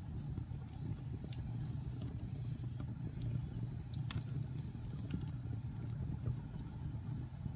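Wood fire burning in a fireplace: a steady low rumble of flames with scattered sharp crackles and pops, one louder pop about four seconds in.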